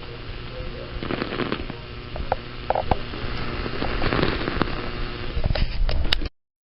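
Crackling noise with scattered sharp clicks over a low rumble, a few louder clicks close together near the end, then the sound cuts off abruptly into dead silence about six seconds in.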